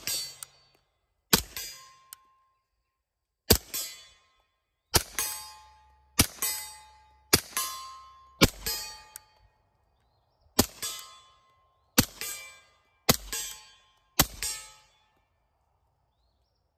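Suppressed .45 ACP shots from an H&K Mark 23 pistol with a Silencerco Osprey 45 suppressor: about ten shots at uneven intervals of one to two seconds, each a sharp crack followed a fraction of a second later by a softer one. A short metallic ring follows several of the shots.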